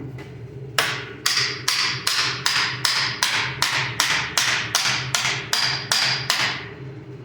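Hammer blows on the rear wheel bearing hub assembly of a 2015 Subaru Forester, driving the hub out of the knuckle. About fifteen steady blows come at between two and three a second, each with a short metallic ring. The blows start about a second in and stop near the end.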